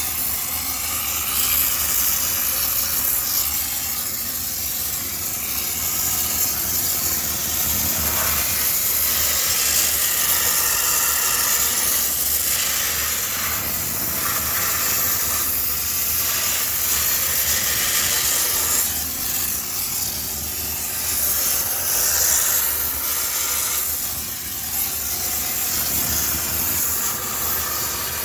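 High-pressure steam sterilizer jetting steam with a steady hiss that swells and dips a little in strength, with a low hum from the machine underneath.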